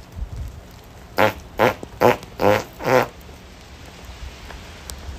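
Five loud farts in quick succession, about two a second, each a short pitched blast.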